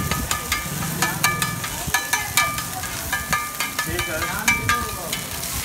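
Metal spatula scraping and striking a large flat griddle, two to three ringing clangs a second, while egg scrambled beside boiled noodles sizzles on the hot surface.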